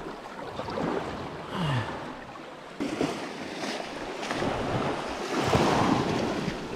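Shallow seawater splashing and small waves washing up onto a beach, swelling louder about five seconds in.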